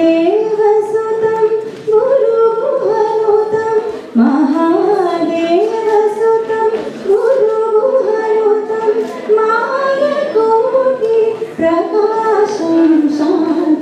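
A young woman singing solo into a handheld microphone, in phrases of a few seconds each with long held notes and ornamented turns of pitch, and short breaths between phrases.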